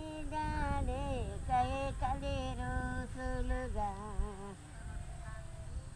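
A woman singing a slow melody unaccompanied, in long held notes that glide between pitches; the singing grows fainter about four and a half seconds in.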